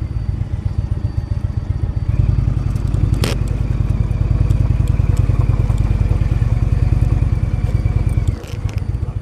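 Indian motorcycle engine running while riding, a fast low pulsing. It gets louder about two seconds in, with a single sharp click a little after three seconds, and eases back shortly before the end.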